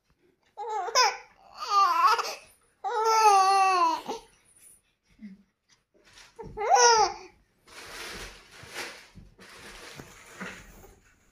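A baby vocalizing: four loud, high pitched calls in the first seven seconds, the third the longest with a wavering pitch, then quieter, noisier sounds.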